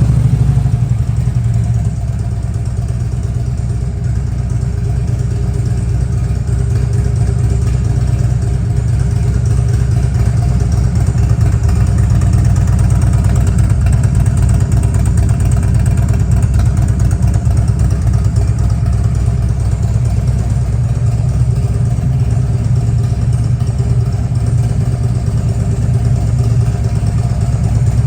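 Harley-Davidson Ultra Classic's air-cooled V-twin, fitted with a Vance & Hines exhaust and a Stage 1 kit, idling steadily right after startup.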